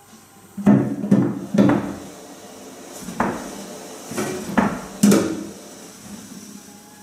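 Seven sharp, irregular knocks, each with a short ring, played as a percussive extended technique in a contemporary piece for cello and organetto.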